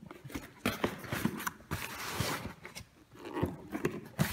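Cardboard boxes being handled and slid apart, with irregular knocks, scrapes and rustles of cardboard.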